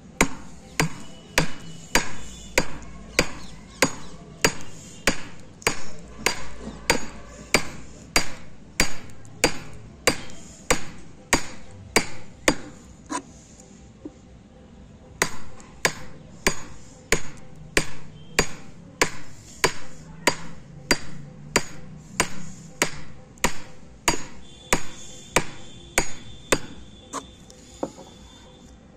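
Steel chisel driven into wood by steady hammer blows, about two strikes a second, each a sharp knock. The blows pause for about a second and a half near the middle, then carry on at the same pace.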